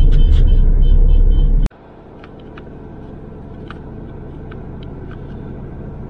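Road noise heard from inside a moving car: a loud low rumble that cuts off abruptly near the two-second mark, then quieter, steady cabin road noise with a few faint short high sounds.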